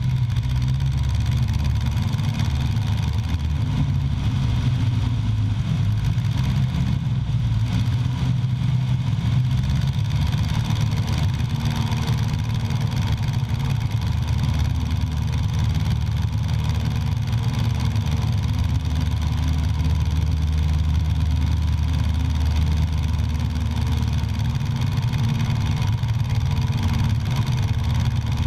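An engine running steadily as a continuous low drone, with no break or change in pitch.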